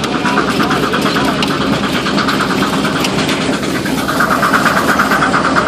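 Steam traction engine pulling a plow through soil, heard from the plow: a steady mechanical noise with a fast pulsing rattle that gets louder about four seconds in.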